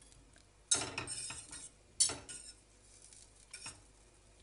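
Wire whisk clinking and scraping against a stainless steel saucepan while stirring butter melting in oil. There are two sharp clinks, the first under a second in and the second at about two seconds, and a lighter one later.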